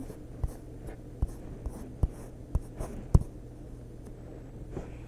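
Light taps and clicks at an irregular pace, about eight in the first three seconds, the loudest a little after three seconds in, then fewer and fainter, over a low steady hum: fingertip tapping while picking items on a device.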